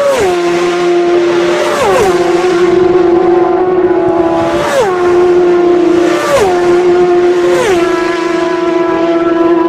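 Racing motorcycles passing flat out one after another, five times in all, about one to three seconds apart. Each time the high engine note drops sharply in pitch as the bike goes by.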